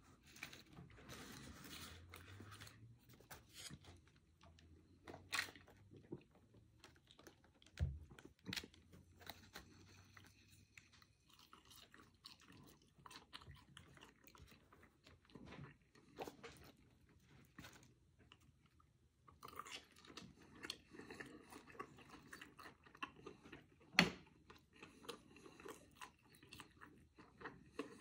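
A person chewing and crunching a bacon cheeseburger and fries close to the microphone, with scattered short crackles and clicks and one sharper crack near the end.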